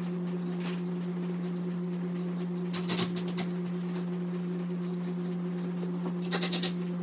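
Steady low hum with two short bursts of rapid clicking, about three seconds in and again near the end, as screws are driven into cabinet door hinges.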